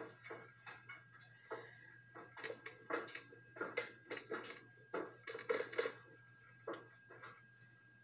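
Irregular knocks, clicks and rustles of things being handled and moved about, with no speech.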